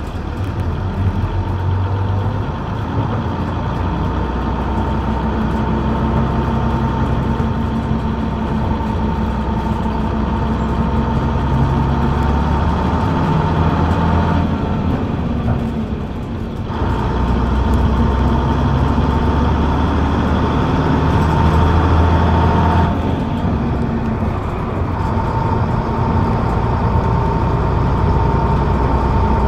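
Leyland Atlantean's rear-mounted Leyland 680 diesel engine, heard from the back seat just above it, pulling steadily with a constant whine. The engine note eases off about halfway through as the bus slows, then picks up again as it accelerates away.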